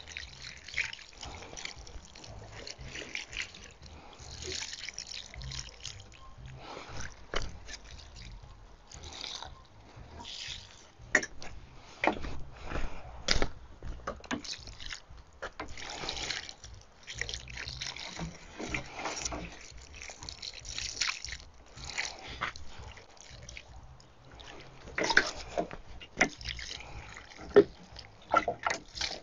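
Water pouring from a watering can onto potted flowers and soil, coming and going in uneven trickling, splashing stretches, with a few sharp knocks in between.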